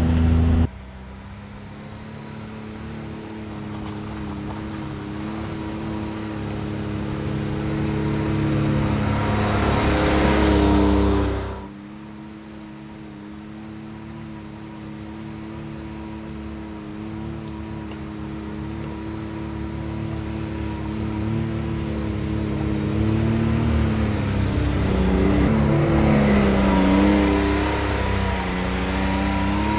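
Can-Am Maverick X3 Turbo RR side-by-side under way, heard from on board, its turbocharged three-cylinder engine holding a steady drone. The overall sound swells gradually over several seconds as it picks up speed, then falls away abruptly twice: within the first second and again about twelve seconds in.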